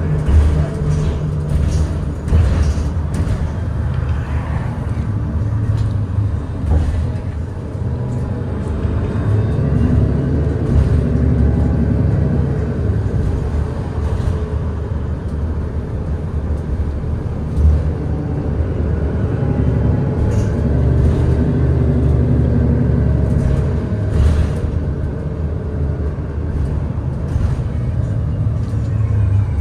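Inside a 2021 Nova Bus LFS Hybrid city bus on the move: steady low rumble of road and drivetrain, with scattered clicks and rattles and a faint whine that slides up and down in pitch.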